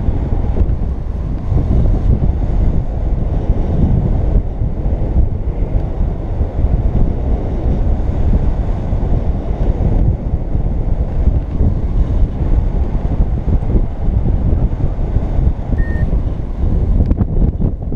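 Wind rushing over the microphone of a camera worn by a paraglider pilot in flight: a loud, steady, low rumbling buffet of airflow.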